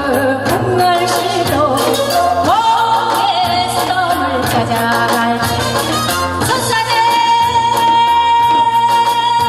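A woman singing a Korean folk song into a microphone through a PA, over backing music with steady drum beats. In the second half she holds one long high note.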